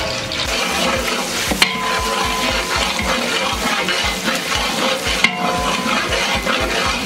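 Chopped onions frying in hot oil in a metal pot, sizzling as a ladle stirs and scrapes them. The ladle knocks sharply on the pot twice.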